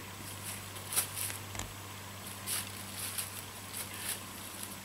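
White-tailed deer's hooves stepping through dry fallen oak leaves: irregular short crunches and rustles, the loudest about a second in. A faint steady low hum runs underneath.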